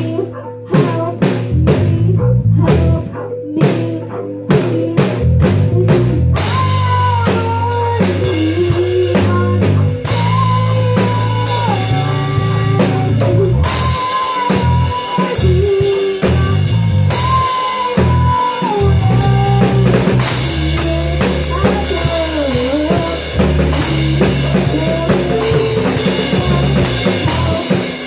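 Live band playing an improvised instrumental: a drum kit keeps a steady beat with cymbals and bass drum. About six seconds in, an electric bass line and a sliding, wavering melody join and fill out the sound.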